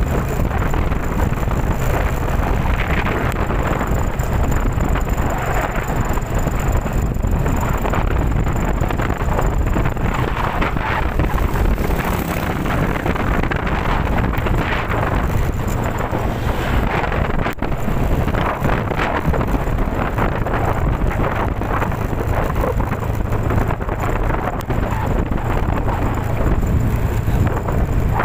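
Typhoon winds blowing hard, with a steady rush of noise and a constant low rumble of wind buffeting the microphone.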